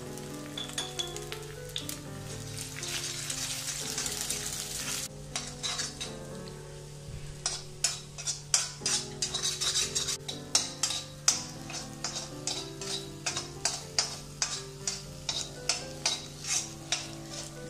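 Eggs sizzling in hot oil in an iron kadai. From about five seconds in, a spatula scrapes and chops them against the pan in quick repeated strokes, two or three a second, over the sizzle as they are scrambled.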